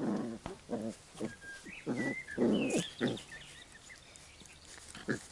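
Labrador retriever puppies play-fighting, with short growls and grunts in bursts over the first three seconds, then quieter near the end.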